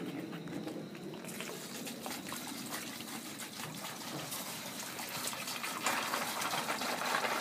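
Water poured from a plastic jug into a clear plastic jar of ice, a steady splashing gush that grows louder near the end.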